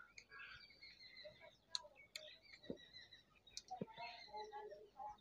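Faint, scattered clicks and light handling noise as fingers work the enamelled copper wires and tape on a CRT TV's deflection yoke coil.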